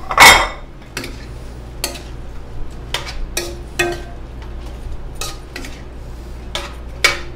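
A spatula stirring chunks of food in a stainless steel sauté pan, scraping and knocking against the metal. There is a loud clatter about a quarter second in, then single scrapes and clinks every second or so.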